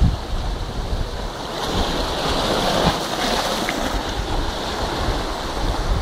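Wind rumbling and buffeting on the microphone over a steady wash of surf.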